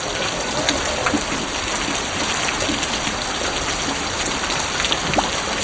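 Heavy monsoon rain falling steadily: a dense, even hiss of rain on hard surfaces, with scattered individual drops and splashes.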